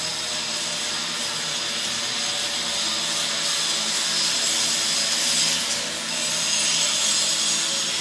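A power tool running steadily in a metal fabrication workshop, giving an even, noisy whirr with faint high tones over it.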